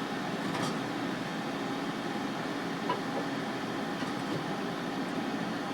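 Steady mechanical hum of a running household machine such as a fan, with a faint tick about three seconds in.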